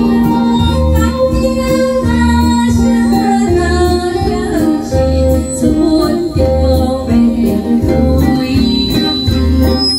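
A woman singing a slow pop ballad into a microphone over backing music with a steady bass beat.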